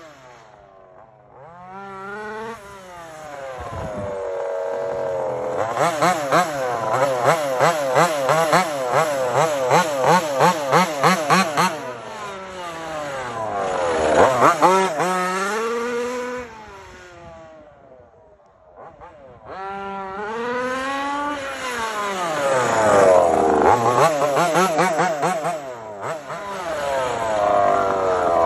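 The 35cc two-stroke gas engine of a 1/5-scale MCD XS5 Max RC car revving up and down as the car drives about, its pitch rising and falling. For several seconds in the middle the revs warble quickly up and down. The engine is faint when the car is far off, near the start and again about two-thirds through, and loudest when it comes close.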